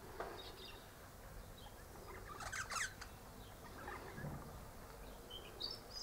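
Eastern rosella chattering faintly: a few soft high chirps, a quick run of chatter notes about halfway through, and a couple of short high whistled notes near the end.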